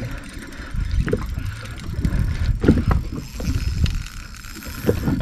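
Uneven low rumble of wind buffeting the microphone aboard a small inflatable boat, with water lapping and a few light knocks against the hull.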